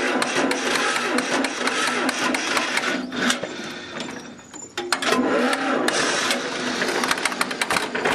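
Restored 1949 John Deere BW's two-cylinder engine being restarted and running with a rapid mechanical clatter. The clatter drops off about three seconds in and picks up again about five seconds in.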